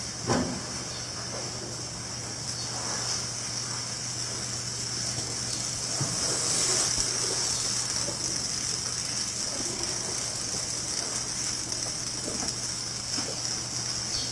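Steady high-pitched hiss of outdoor background noise over a low steady hum, with a single thud just after the start and a few faint clicks.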